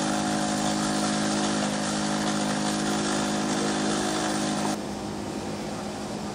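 A motor or engine running steadily at one constant speed, cutting off abruptly about four and a half seconds in. A quieter steady hum and hiss remains after it.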